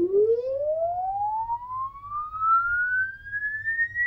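Audio test sweep: a single sine tone gliding smoothly upward from a low note to a high whistle of about 2 kHz, played from an online frequency-sweep generator through channel 5 of an LD Zone 622 rack mixer to a speaker. A low hum runs underneath.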